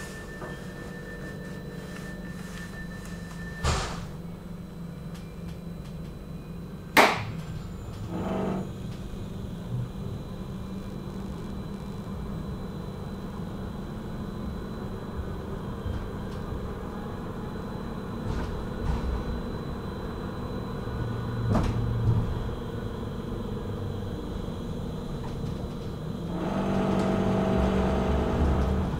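Inside a Bombardier M5000 tram: a steady electrical hum, with a thin steady tone that stops with a clunk about four seconds in, and a sharp knock about seven seconds in. Near the end the sound grows louder and fuller as the tram's motors pick up.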